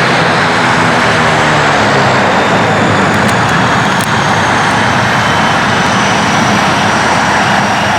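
Jet airliner's engines running loud and steady, with faint high whines that slowly fall in pitch.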